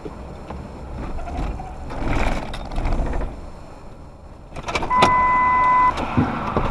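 Road and engine noise heard inside a moving vehicle on a highway. Near the end, a steady electronic beep sounds for about a second.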